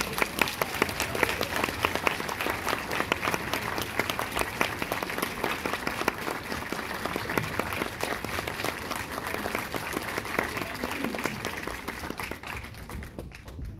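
Audience applauding: dense, steady clapping from a full house that dies away near the end.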